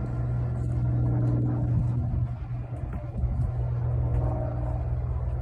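Steady low rumble of a car, heard from inside the cabin, with a constant low hum running throughout.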